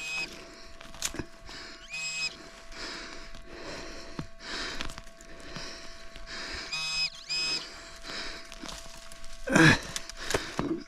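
Metal detector giving three short beeps over a target, with scraping and rustling of soil being dug between them and a louder rustling thump near the end.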